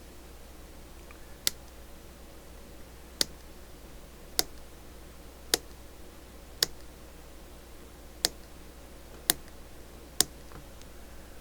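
Eight sharp, single clicks, irregularly spaced about a second or two apart, over a faint steady hum.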